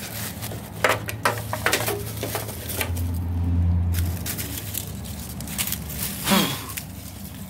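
Handling noise as the solar trickle charger's wires are worked around a mower battery: scattered clicks, knocks and rustles, with a low rumble for about a second midway.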